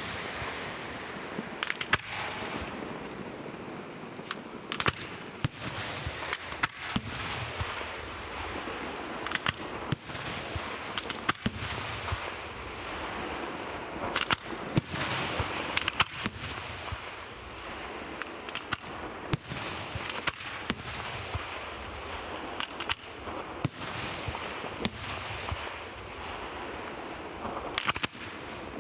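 Aerial firework shells bursting overhead, a sharp bang every second or two over continuous dense crackling from crackling stars.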